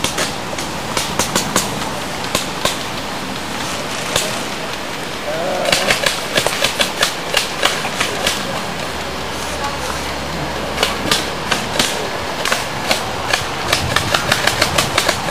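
Sharp clicks and pops from model warships' CO2 cannons firing, scattered irregularly and coming in quick runs about six seconds in and again near the end, over steady outdoor noise.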